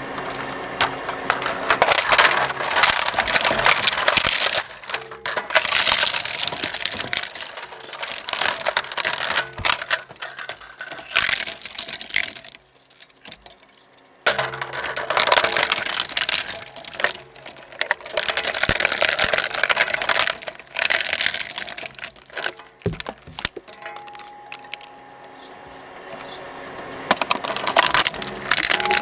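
Twin-shaft shredder's steel cutter discs crushing a plastic toy truck and its car-carrier trailer. The shredder makes dense cracking and crunching over its drive's steady hum, in two long bouts with a short lull between them. It then runs more quietly with scattered cracks near the end.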